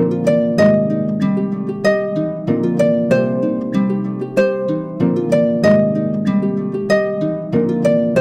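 Background music of plucked strings, harp-like, with a steady pulse of notes about every 0.6 s and softer notes in between.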